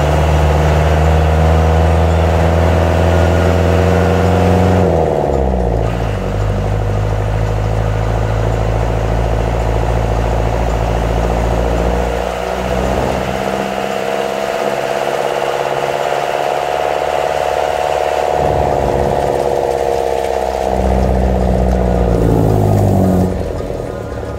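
Off-road jeep's engine running as the vehicle drives, heard from inside it. The engine note falls about five seconds in, shifts again around twelve seconds, falls once more near the end, then fades.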